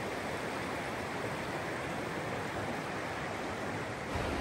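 Flowing water of a stream or small waterfall: a steady, even rush. A low rumble comes in near the end.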